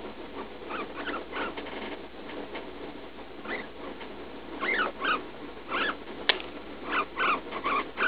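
Guinea pig squeaking in pain while passing droppings: short squeaks, each rising and falling in pitch, in quick clusters that grow louder and more frequent toward the end. One sharp click comes about two-thirds of the way in.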